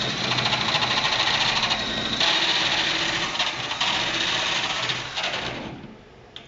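Power drill with a hole saw cutting a hole through a ceiling panel, a steady grinding buzz with a few brief dips. It stops suddenly near the end, followed by a single small click.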